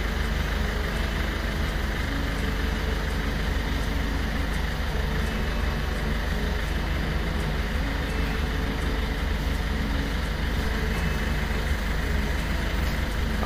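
Steady low hum under an even hiss of background noise, with no distinct events.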